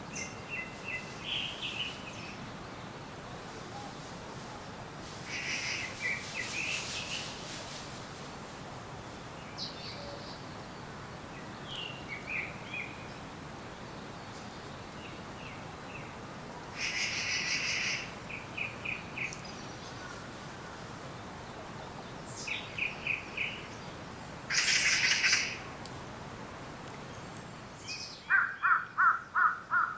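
Wild forest birds calling: harsh, scratchy calls, each followed by a quick run of short chirps, repeating every few seconds over a steady faint hiss. About two seconds before the end, a louder, rapid series of lower calls begins.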